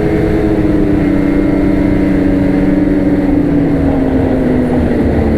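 Ski-Doo Renegade X-RS 850 snowmobile's two-stroke twin engine running under way, its note falling slowly as the sled eases off the throttle.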